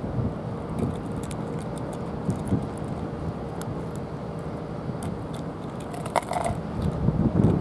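Steady outdoor background rumble with scattered faint clicks, and a short pitched sound about six seconds in.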